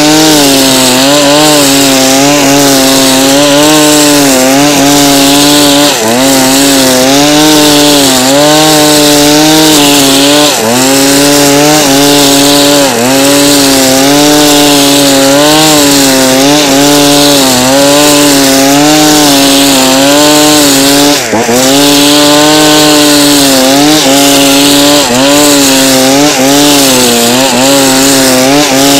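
Two-stroke brush cutter with a nylon-cord head running flat out while cutting grass. Its pitch dips briefly every second or two as the spinning cord bites into the grass, then recovers.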